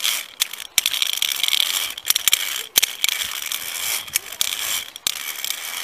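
Metal safety gear sliding along a steel safety cable as a climber crosses a suspended ropes-course bridge: a continuous rattling scrape broken by a few short gaps and sharp clicks.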